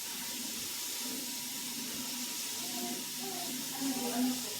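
Tap water running into a sink with a steady hiss.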